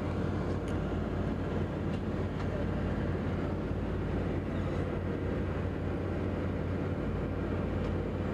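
Steady highway traffic noise: a continuous rumble of vehicles with a constant low hum.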